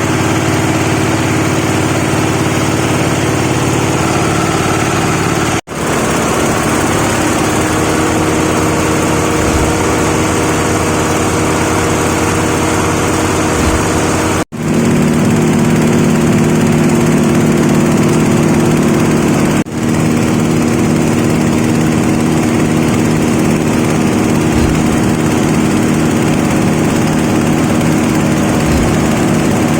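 Rice-husk grinding machine (disk mill) running steadily with a loud, even machine hum. The sound drops out for an instant three times, picking up again with a slightly changed pitch each time.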